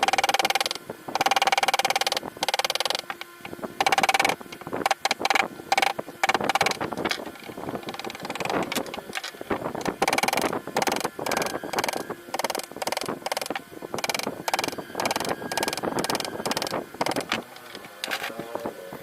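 Carving tools working sheesham wood: dense runs of sharp knocks and taps in bursts, with a ringing metallic tone during the loudest stretches.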